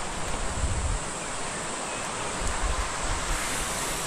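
Steady outdoor rushing noise, with wind buffeting the microphone in two low rumbles, about half a second in and again near three seconds.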